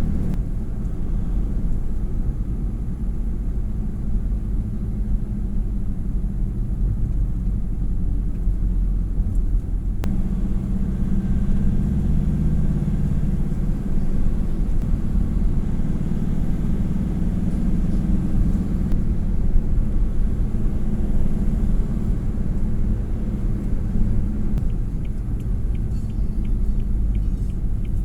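Steady low rumble of a vehicle on the move, engine and road noise, with a short run of light, rapid, evenly spaced ticks near the end.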